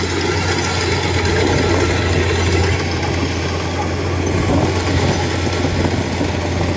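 Kubota DC-105X rice combine harvester running steadily as it cuts and threshes, a continuous low diesel drone with the clatter of its header and threshing gear over it.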